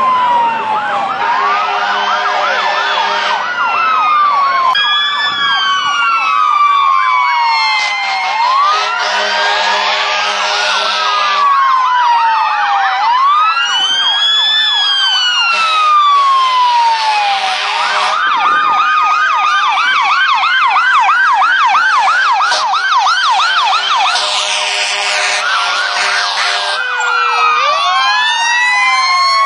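Sirens of several fire engines sounding together: overlapping wails rising and falling, with a fast yelp for several seconds past the middle. Long horn blasts come in again and again over the sirens.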